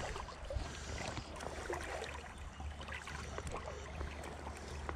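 Faint, steady sound of a small stream's running water, with a low steady rumble underneath.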